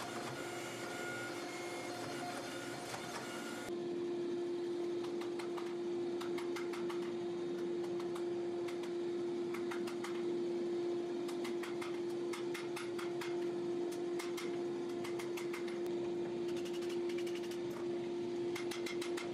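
A glowing steel blade blank being forged with a hand hammer on an anvil: quick runs of sharp metal-on-metal blows, starting about four seconds in, over a steady shop machine hum. Before that, only the steady hum is heard while the billet sits in the press.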